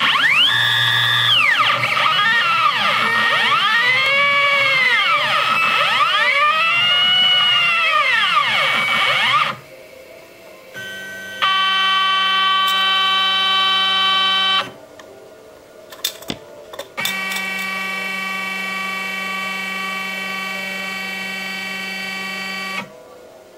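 Stepper motors of a home-built CNC machine whining in pitch as they move. For the first nine seconds or so the pitch repeatedly rises and falls as the axes speed up and slow down. Later come two steady, held whines, one of about three seconds and one of about six.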